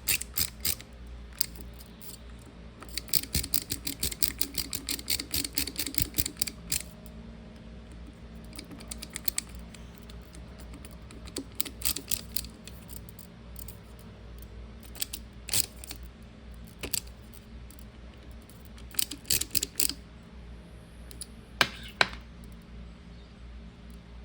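Bursts of rapid small clicks, from screws being driven in during the reassembly of a mini ice maker's pump, with a few louder single clicks near the end. A steady low hum runs underneath.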